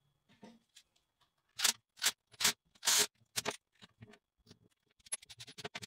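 Plastic and metal parts of a partly disassembled HiKOKI 36V cordless impact wrench being handled: five short scraping strokes, then a fast run of small clicks near the end.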